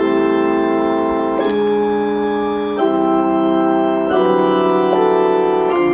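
Electronic organ playing a slow run of five held chords, each changing abruptly to the next about every second and a half.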